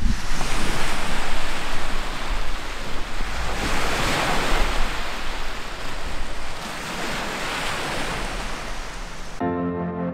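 Wind rushing across the microphone with a low rumble, over the wash of small waves on a lake's gravel shore, swelling about four seconds in. Near the end the sound cuts abruptly to soft background music.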